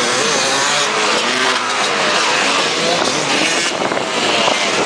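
Off-road racing engines revving loudly, their pitch rising and falling again and again over a dense wash of noise.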